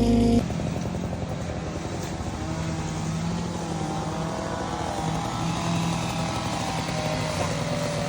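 John Deere 317G compact track loader's engine running. It is loud and steady at first, then drops suddenly about half a second in to quieter running whose pitch rises and falls.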